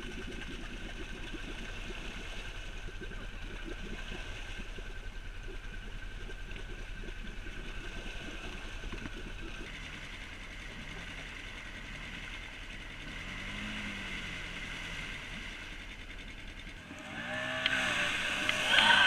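Side-by-side UTV and quad ATV engines running steadily, the revs rising and falling now and then, with a louder spell of revving near the end.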